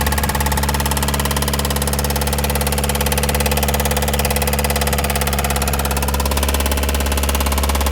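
Volkswagen Touran 1.9 TDI diesel engine running at idle with a steady, rapid knocking, the loud engine knock being diagnosed.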